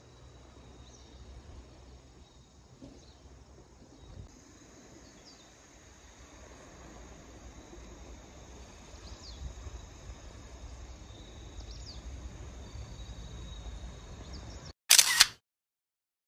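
Faint early-morning outdoor ambience: steady high insect trilling, a few short bird chirps and a low rumble that builds gradually. Near the end the ambience cuts out suddenly, and a single loud SLR-style camera shutter click follows, a quick double clack.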